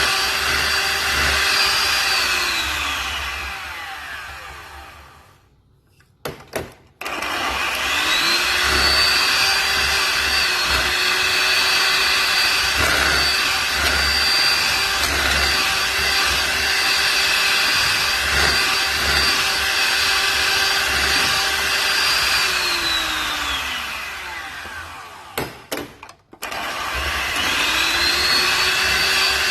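Electric mixer beating egg whites into meringue, its motor running with a steady whine. Twice it winds down to a stop, with a few clicks while it is stopped, then speeds back up.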